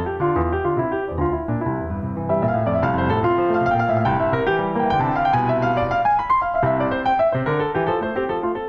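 Background piano music: a piano playing a flowing passage of many overlapping notes, growing a little fuller and louder about two seconds in.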